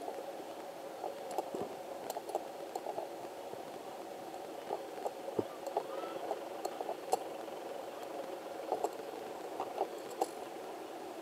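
Military helicopters, an Army Tiger and an MRH90, droning steadily as they fly off, with many short irregular crackling clicks over the drone.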